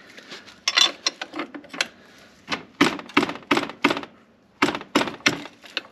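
Metal clicking in short irregular runs, like a ratchet wrench working the 24 mm rear axle nut of a Suzuki DR350S loose.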